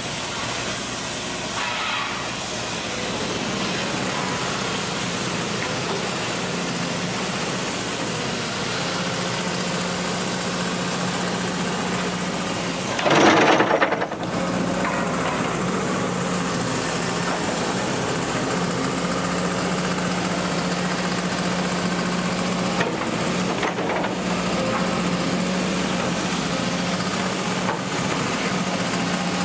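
Diesel engine of a Cat hydraulic excavator running steadily with a constant low hum, and one brief loud burst about halfway through.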